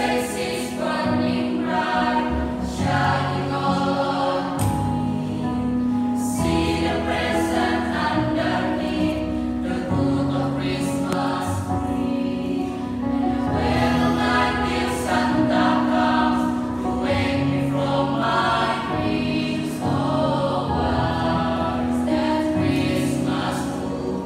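Mixed choir of young women and men singing a sacred song together, with several voice parts sounding at once.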